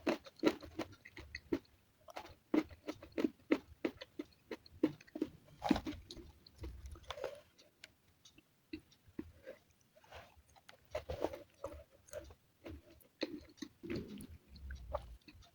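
Close-miked chewing and crunching of food, an irregular run of short crisp crunches and bites.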